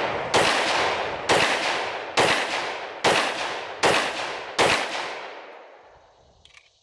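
Six shots from a stainless 1911 pistol in .45 ACP firing Double Tap hollow-point rounds, a hot load rated at 1300 feet per second. The shots come a little under a second apart, each with a long echoing tail. A faint click follows near the end.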